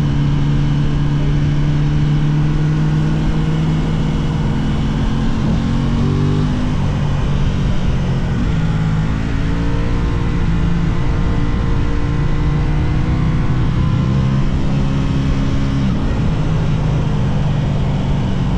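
Aprilia RS660's parallel-twin engine pulling through the gears on a ride. Its pitch drops about six seconds in, climbs again, and changes once more near the end.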